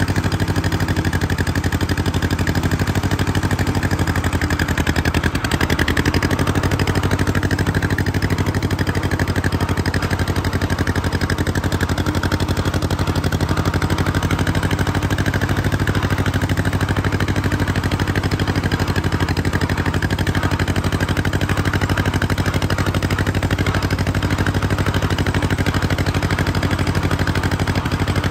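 John Deere 420W tractor's two-cylinder engine running steadily while the tractor is driven, with an even, unchanging beat.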